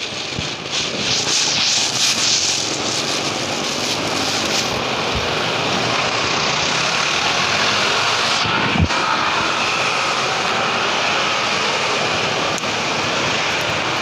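Steady street traffic noise, motorcycles running past in the road. A short thump about nine seconds in.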